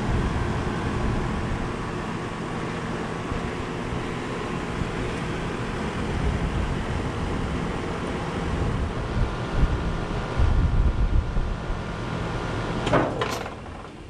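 Rheem Classic RP15 3.5-ton heat pump outdoor unit running in heat mode: the steady hum of its scroll compressor and condenser fan. About 13 seconds in there is a brief sweeping sound, and then the sound drops off sharply.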